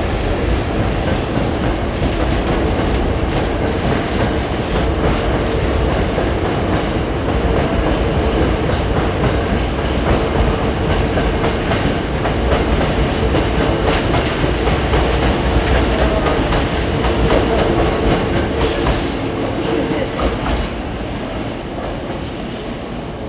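Hankyu electric commuter train running by, its wheels clacking over rail joints and points with a steady motor hum. The sound eases off near the end.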